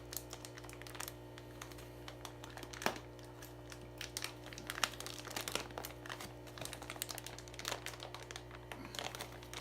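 Plastic fish-shipping bags crinkling and rustling in the hands as the outer bag of a double-bagged pair is worked open, an irregular string of crackles over a steady low hum.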